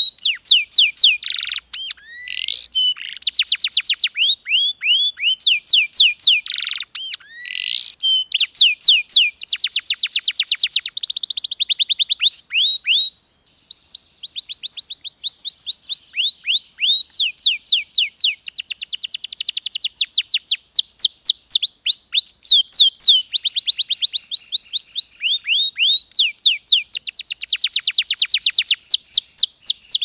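Canary singing: long, fast, high-pitched trills of repeated downward-sweeping notes, changing from phrase to phrase, with one brief pause about halfway through.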